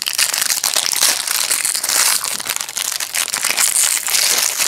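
Foil wrapper of a trading-card pack crinkling in the hands, a dense continuous crackle.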